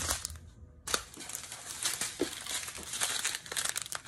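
Small plastic bags of diamond-painting resin drills crinkling and crackling as they are handled, in irregular rustles with a short lull about half a second in.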